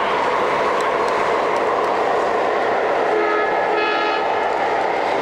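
O gauge three-rail model freight train rolling steadily past, its container flatcars running on the track. About three seconds in, a model train's electronic diesel horn sounds for about a second.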